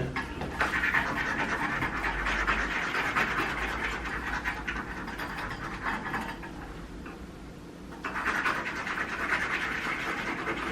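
Scratch-off lottery tickets being scratched: rapid rough scratching that breaks off for about two seconds past the middle, then starts again.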